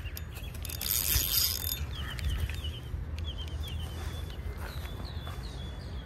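Spinning reel being cranked to bring in a small hooked fish, with a loud rasping burst about a second in. Wind rumbles on the microphone throughout.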